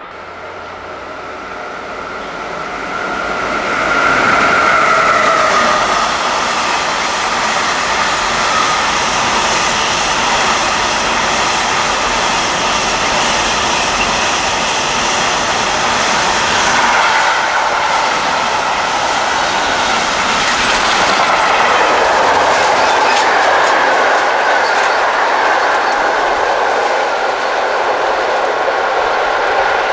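Long container freight train passing close by on the main line. The sound swells over the first four seconds as the front arrives, then settles into a steady, loud rolling and clatter of wagon wheels on the rails, with a high ringing tone over it.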